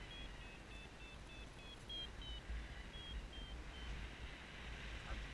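Paragliding variometer beeping: a quick run of short, high beeps, climbing a little in pitch about two seconds in and then falling off and stopping about four seconds in, signalling a brief puff of rising air lifting the glider. Low wind rumble on the microphone underneath.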